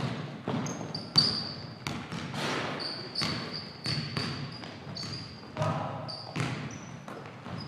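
Basketballs bouncing on a hardwood gym floor, sharp repeated thuds that echo in the hall, mixed with short high squeaks of sneakers on the court as players cut and stop.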